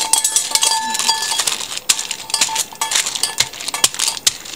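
Baking paper crackling and rustling as hands press and smooth it flat over a sheet of cookie dough, with a thin high tone coming and going in the first second or so.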